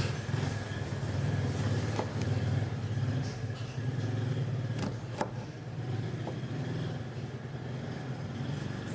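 A motor running with a steady low drone, with a few sharp clicks about two and five seconds in.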